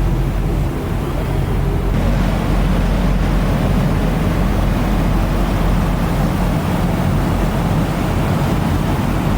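Steady low drone of a vehicle ferry's engines under way, with a rushing noise of wind and water over it.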